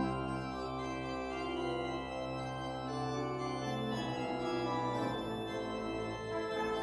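Pipe organ playing alone, sustaining held chords that change every second or so.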